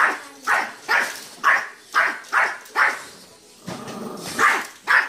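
Yorkshire terrier barking repeatedly, about nine sharp barks at roughly two a second, with a pause of about a second and a half just past the middle.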